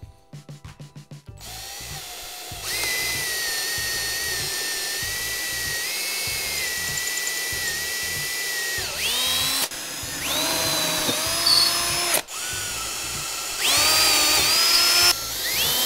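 An 18-volt cordless drill with a 21/64-inch bit boring clearance holes through plywood. It opens with a quick run of clicks as the keyless chuck is ratcheted tight. The motor then whines up to speed and runs steadily for several seconds, and after that stops and restarts a few times in shorter runs, each start a rising whine.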